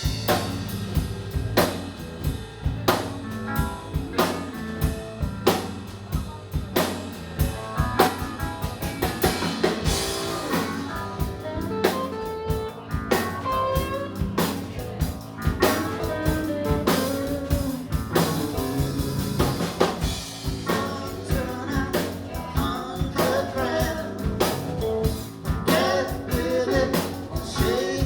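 Live rock band playing a bluesy shuffle, with a drum kit keeping a steady beat under guitar.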